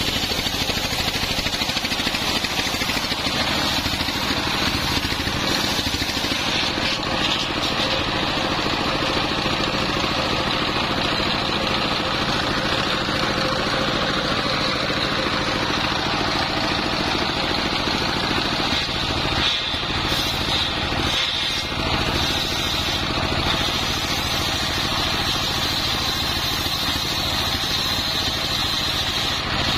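Stationary diesel engine running steadily, belt-driving a circular saw blade that rips lengthwise through a coconut-palm log to cut beams. A high, steady whine from the blade sits over the engine.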